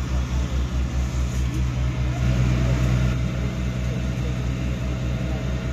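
Vehicle engine idling close by: a steady low throb, about six beats a second, with faint voices behind it. About two seconds in a thin steady tone joins it.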